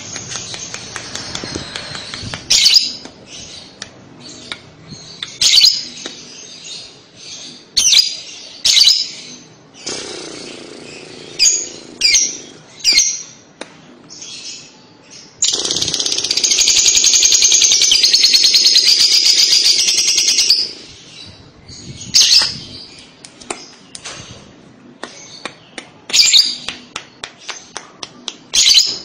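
Fischer's lovebird calling: a string of sharp, high, separate chirps, and from about halfway through a loud, continuous rapid chatter (the 'ngekek') lasting about five seconds before the single chirps resume.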